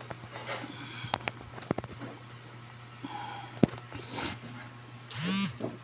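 Scattered clicks and light knocks of tools and parts being handled on a repair bench, over a steady low electrical hum, with a short pitched sound that rises and falls near the end.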